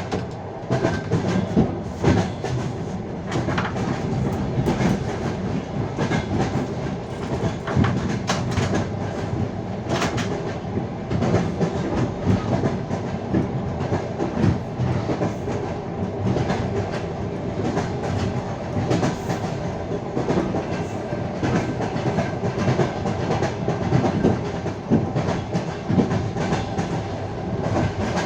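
Wheels of a moving passenger train clattering over rail joints: steady rumble of the carriage with irregular sharp clicks of the clickety-clack.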